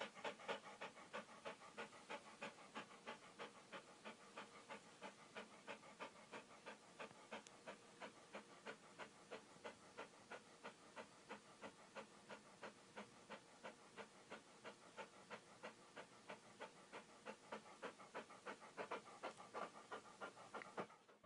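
A dog panting steadily and quietly, in a fast, even rhythm of about three breaths a second.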